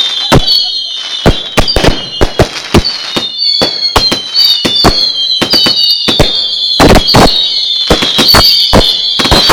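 'Raging Bull' firework barrage firing: rapid, irregular sharp bangs mixed with overlapping high whistles that fall slightly in pitch.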